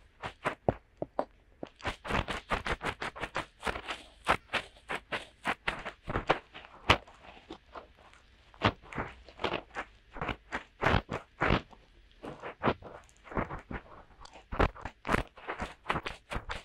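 Fingertips rubbing and pressing into both silicone ears of a binaural microphone for finger ear cleaning: close, crunchy scratching strokes in quick runs of several a second, with a short pause about halfway.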